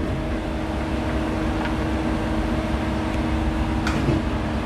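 Steady electric hum of an idling Hyundai CNC turning centre, with a few steady tones. A single light click about four seconds in.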